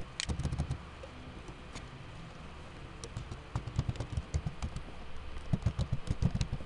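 Computer keyboard typing in short bursts of key clicks, with a quieter pause of about two seconds early on between them.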